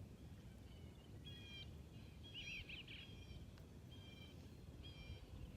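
Quiet outdoor ambience with birds calling: a series of short, high chirps, repeated every half second to a second, over a low steady background rumble.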